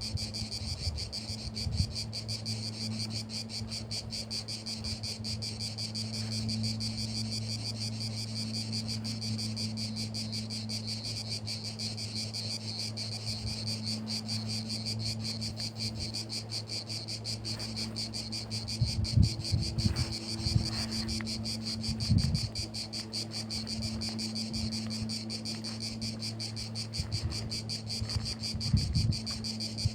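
Insects trilling steadily in fast, even pulses, with a steady low hum beneath and a few brief low bumps, about two-thirds of the way in and near the end.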